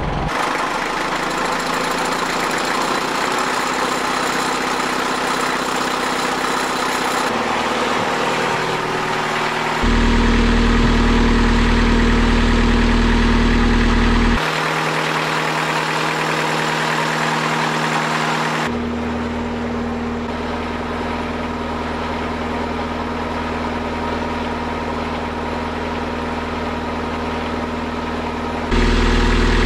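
Inboard marine engine of a wooden sailboat running steadily on a dockside test run. The drone changes abruptly a few times as the sound cuts between spots around the boat. It is loudest, with a deep low rumble, for a few seconds from about ten seconds in and again near the end.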